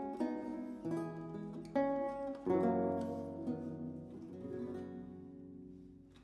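Baroque lute played solo: a run of plucked notes, then a full chord with deep bass struck about two and a half seconds in and left to ring and slowly die away.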